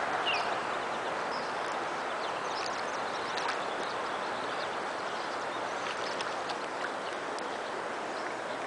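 Steady rush of flowing river water around a wader, with scattered faint ticks.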